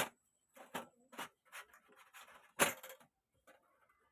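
A series of light clicks and taps from TV parts being handled during a backlight repair, about six in all, the loudest about two and a half seconds in.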